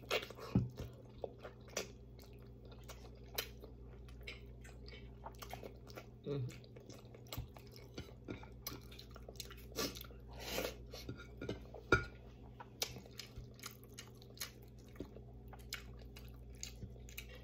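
A person chewing braised pork leg (paksiw na pata) close to the microphone: a continuous run of small wet mouth clicks and smacks, with a few louder, sharper clicks scattered through. A faint steady low hum runs underneath.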